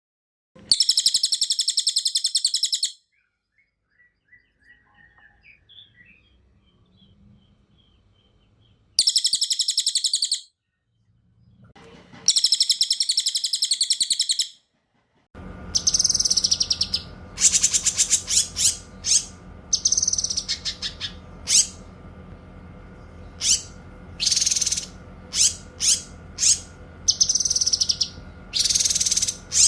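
Songbirds (cililin and cucak kinoy) singing in a bird-song training recording. The first half holds three long, rapid, high-pitched trills of a few seconds each, with quiet gaps and faint chirps between. From about halfway a steady low hum sets in, under a quick series of short sharp calls and brief trills.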